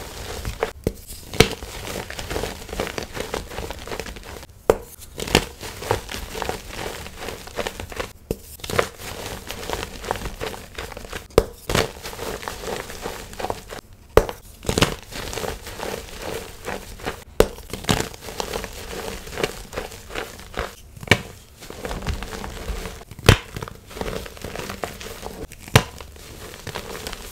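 Blocks of gym chalk crushed and crumbled by hand in a tray of loose chalk powder: a continuous crunchy crumbling with frequent sharp snaps as pieces break.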